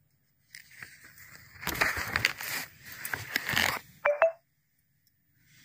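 Paper rustling and scraping with small clicks as the notebook pages are handled and turned, loudest in two bursts about two and three and a half seconds in, with a short sharp blip about four seconds in.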